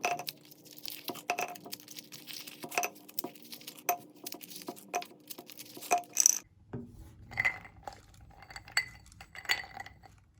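Meat grinder crunching chocolate candy: a steady hum under sharp crunching clicks that come a little over once a second. About six seconds in the sound changes abruptly to a low rumble with scattered clinks.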